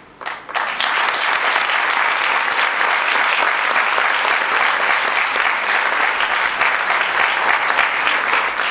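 Audience applauding, breaking out suddenly about half a second in and holding steady as dense clapping.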